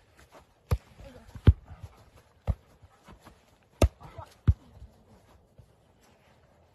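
Volleyball being hit back and forth by hand: about five sharp slaps on the ball, spaced irregularly over a few seconds, the loudest about a second and a half in.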